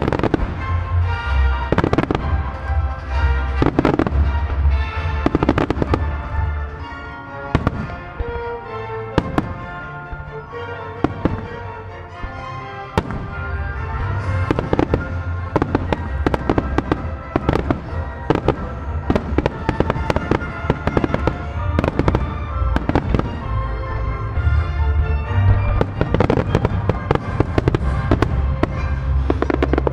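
Fireworks shells bursting in rapid, overlapping booms and cracks over recorded music, a melody-fireworks show synchronised to the soundtrack. The bursts thin out for a few seconds near the middle, then come thick and fast again.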